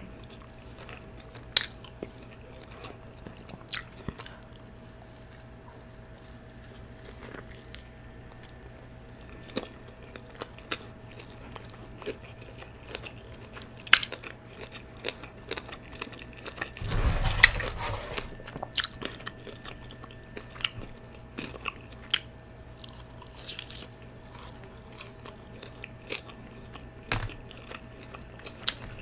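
Chewing and smacking with crunchy bites of fried chicken and fries, a scatter of sharp wet mouth clicks. Partway through, a louder, rougher sound lasts about a second.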